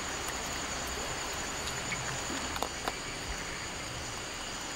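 Insects trilling steadily at a high pitch over a background hiss, with a few faint clicks about halfway through.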